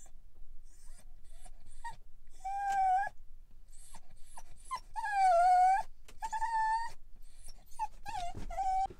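A dog whining: several long, high, wavering whines with short whimpers between them. The loudest whine comes about five seconds in.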